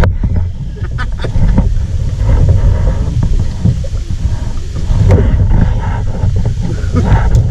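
Low rumbling wind noise on the camera microphone, with scattered knocks and rustles from a kayak and a logjam as a man climbs out onto the logs.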